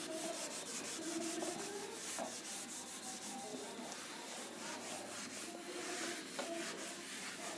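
A marker-covered whiteboard being wiped clean: a dry rubbing swish in quick repeated back-and-forth strokes.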